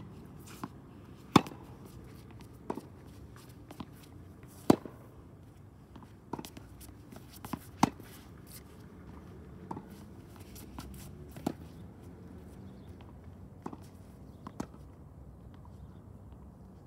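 Tennis balls struck by rackets in a rally: sharp pops about every one and a half to two seconds, alternating louder and fainter, over a low background hum.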